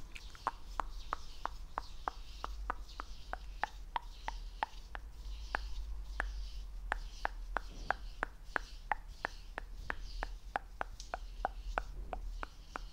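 Close-miked ASMR mouth sounds: a steady run of sharp, wet mouth clicks, about three a second, over soft breathy hiss.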